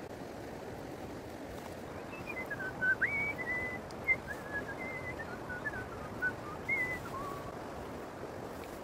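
A person whistling a short, wandering tune for about five seconds, over the steady rush of creek water.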